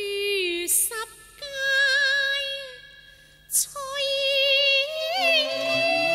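A female Cantonese opera singer singing long held, wavering notes, broken twice by short sharp noises. Lower accompanying instrument notes come in near the end.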